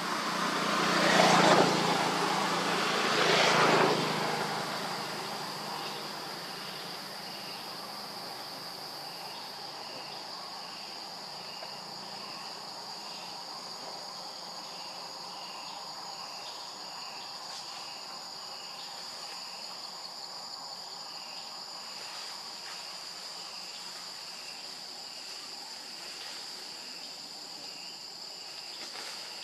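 Forest insects buzzing in a steady high drone, with a chorus of short chirps repeating several times a second. Two louder rushing swells of noise come in the first few seconds.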